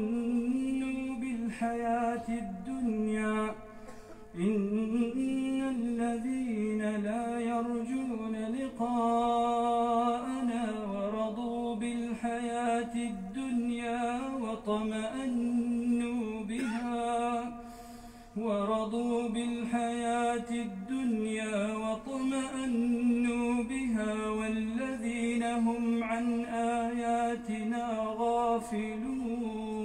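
A man reciting the Quran aloud in a slow melodic chant, drawing out long ornamented notes in phrases, with short pauses for breath about 4 seconds in and about 18 seconds in.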